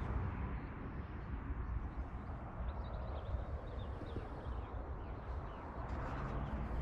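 Outdoor ambience: a steady low rumble and hiss, with faint bird chirps from about two and a half to five seconds in.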